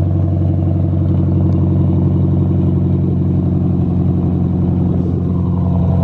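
Chrysler 300C's 5.7 L Hemi V8 idling steadily just after a cold start, heard close to the exhaust tip with a deep, even exhaust note.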